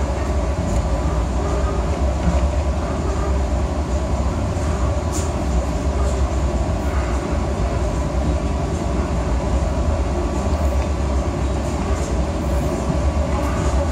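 Steady running rumble of the Argo Parahyangan passenger train on the rails, heard from inside a coach, with a few faint clicks.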